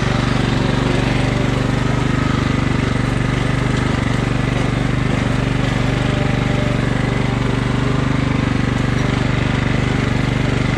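Riding lawn mower's small engine running steadily under load as the mower drives through a muddy, water-filled rut.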